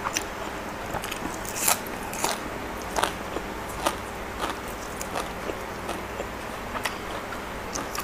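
Close-up chewing and crunching of crisp raw vegetables: irregular crunches every half second or so, the loudest a little under two seconds in.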